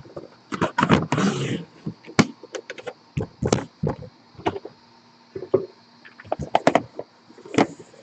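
Hands opening a boxed trading-card case: the outer box lid slides off and the hard carrying case inside is moved and set down. It makes a string of sharp clicks and knocks, with a brief scrape about a second in.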